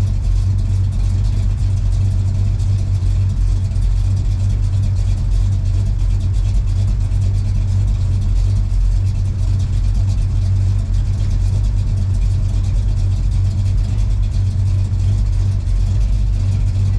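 1969 Dodge Charger's engine running at a steady speed: an even, low rumble with no change in pitch.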